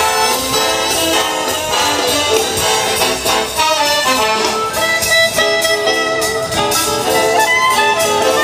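Jazz dance music with brass and saxophone and a steady beat, played over a loudspeaker.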